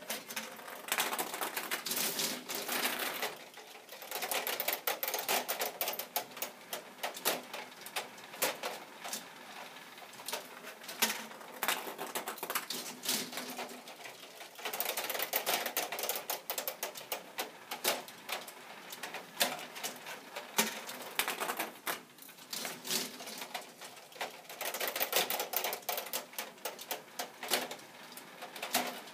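K'Nex plastic fruit-machine mechanism clattering as its reels spin, a rapid run of clicks and rattles that starts about a second in and thickens in spells, while the reels come to rest one by one.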